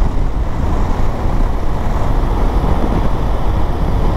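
BMW motorcycle under way: steady wind rush over the microphone with engine and road noise underneath, strongest low down and even throughout.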